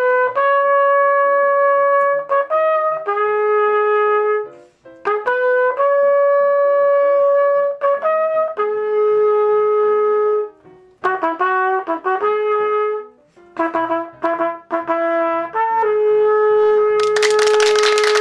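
Trumpet playing a slow tune of long held notes, in four phrases with short breaks between them. A loud hissing noise joins in near the end.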